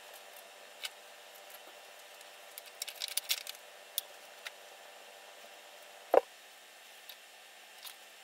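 Scattered small metallic clicks and ticks, with a quick cluster about three seconds in, from a chain master-link press tool and the N54 engine's high-pressure fuel pump drive chain being handled while the master link is fitted. A short squeak about six seconds in is the loudest sound.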